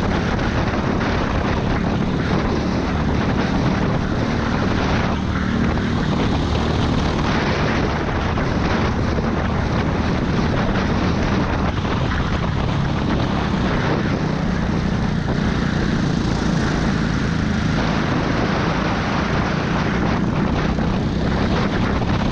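Go-kart engine running steadily at racing speed, recorded on board the kart.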